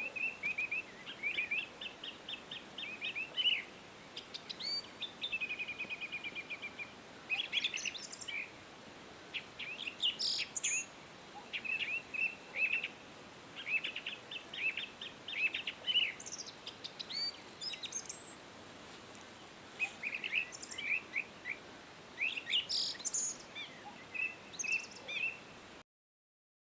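Songbirds chirping and singing: many short, quick calls and a brief trill over a faint steady hiss. It cuts off suddenly near the end.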